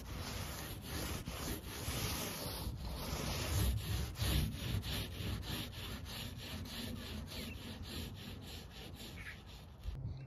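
Paint roller on an extension pole rolling floor coating back and forth over a plywood floor: a continuous rubbing sound broken by quick, repeated ticks. It stops near the end.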